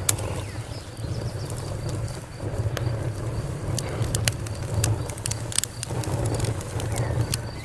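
Fire crackling: sharp, irregular pops and snaps over a steady low rumble.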